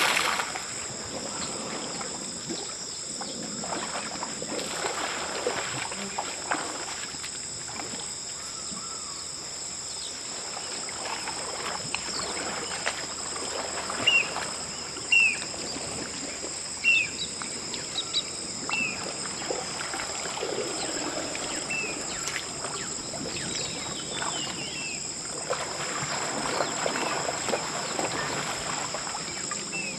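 Water splashing and sloshing as baby elephants wade and kick in a shallow pool, over a steady high insect drone. About halfway through come five short, sharp, high chirps a second or two apart.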